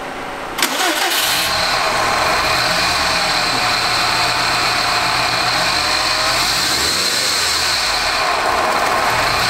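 Subaru WRX STI turbocharged flat-four engine firing up about half a second in and running steadily, with a slow rev rising and falling near seven seconds in. The engine, freshly drained of flood water, is running on a speed-density tune with its mass airflow sensor unplugged.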